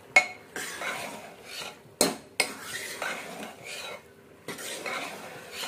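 A metal spatula scraping and stirring thick grated-carrot halwa in an open pressure cooker, with a few sharp knocks of metal against the pot, the loudest near the start and about two seconds in.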